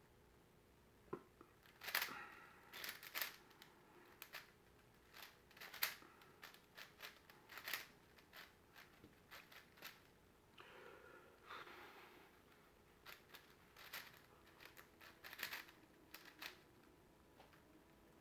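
Plastic clicking and clattering of a big Rubik's-type cube being turned by hand, in quick irregular bursts of turns with short pauses between.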